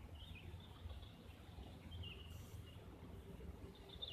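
Faint outdoor background: a few short bird chirps, near the start, about two seconds in and near the end, over a low steady rumble.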